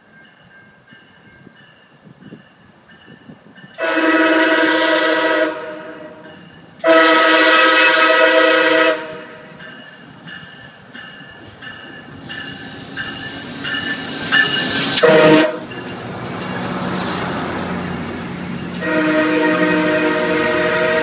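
Air horn of an arriving MARC diesel commuter locomotive sounding long, long, short, long, the standard grade-crossing warning: two long blasts, a short toot, then a final long blast near the end. Between them the locomotive runs past with a rising rush of engine and wheel noise.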